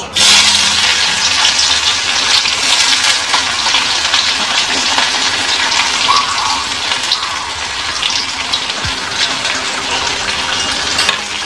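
Chopped onion sizzling in hot mustard oil in a kadhai, the hiss starting suddenly as the onion hits the oil and carrying on steadily.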